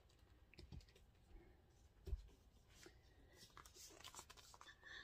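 Very faint handling of large illustrated hardcover books as one is put aside and the next picked up: a few soft clicks and rustles, with a soft thump about two seconds in.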